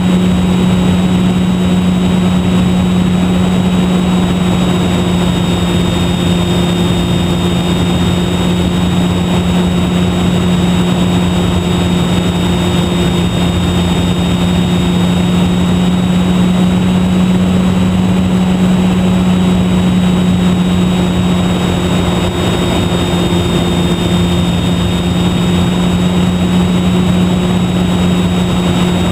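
Electric motor and propeller of a HobbyZone Super Cub RC airplane, fitted with an E-flite Park 480 brushless motor, running steadily in flight as heard from the onboard camera. It is a constant low drone with a thin high whine above it and a rush of air noise.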